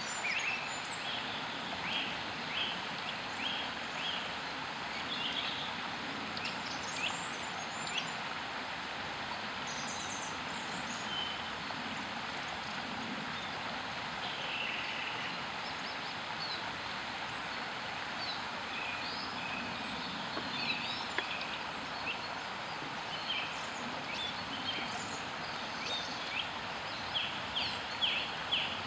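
Shallow stream rushing steadily over stones and a small cascade, with a bird singing runs of short, quick, high notes at the start and again near the end.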